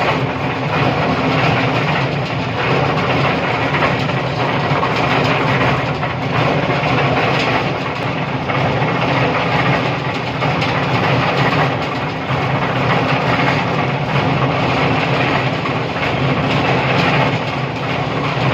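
Engine of construction machinery running steadily, a constant loud drone with a low hum underneath.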